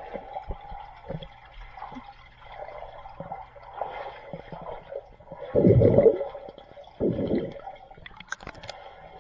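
Swimming-pool water sloshing and gurgling, with two louder splashes a little past halfway, about a second and a half apart.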